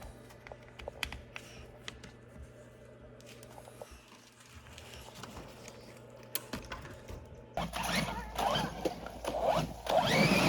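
Faint scattered clicks and ticks of a screwdriver working on the screws of a hobby RC car, over a low steady hum. About three quarters in, the sound cuts abruptly to a louder, noisier outdoor mix.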